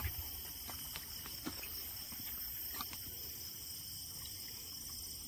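Steady high chirring of night insects, with a few faint knocks in the first three seconds.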